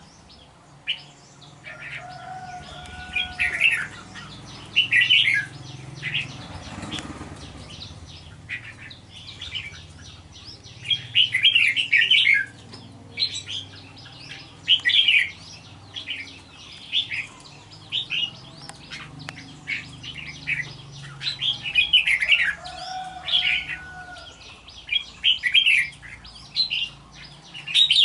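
Red-whiskered bulbul singing: short, bright, chirpy phrases repeated every second or two, with a few lower whistled notes in between.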